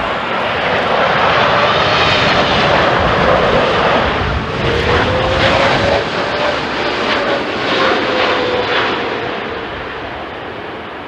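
Jet airliner flying past low, its engines giving a loud rushing noise with a faint whine that rises slightly and then falls in pitch, fading away near the end.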